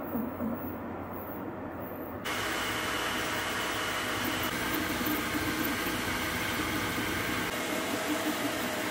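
Creality K1 Max 3D printer printing at speed: a steady hiss of its cooling fans with the wavering hum of its stepper motors. The sound jumps abruptly louder and brighter a little over two seconds in.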